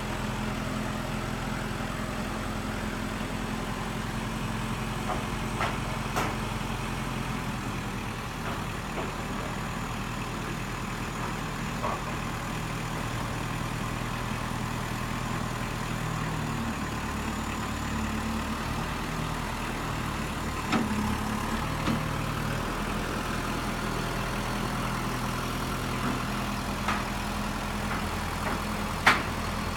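Kubota M59 backhoe's diesel engine running steadily, its note shifting in pitch for a few seconds around the middle. Several sharp knocks sound over it, the loudest near the end.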